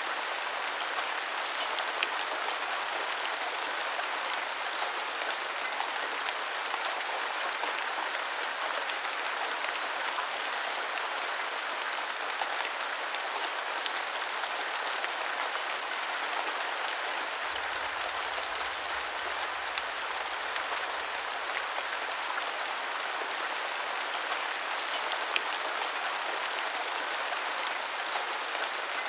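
Steady rain falling, an even hiss, with a few sharper drop ticks here and there.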